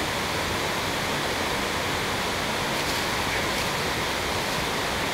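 A steady rushing background noise, even and unbroken, with faint rustles as handfuls of sawdust are scooped out of a plastic bag.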